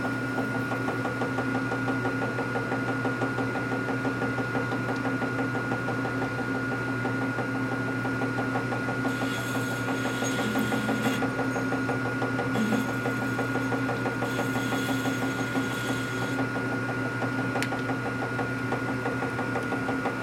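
A shop machine tool running with a steady motor hum and whine while a cutter works metal in a fine, even rhythm. The cutting turns scratchier in two stretches around the middle.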